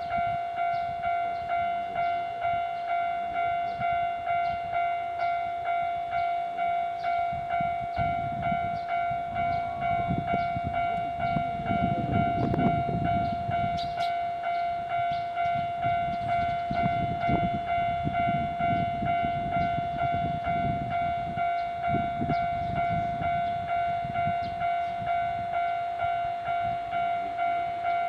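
Japanese level crossing warning bell ringing on and on in steady, evenly spaced dings while the crossing stays closed. A train rumbles past through the middle.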